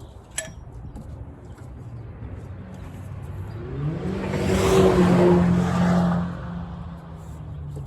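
A vehicle passing by, its engine hum and road noise swelling to a peak about five seconds in, then fading away.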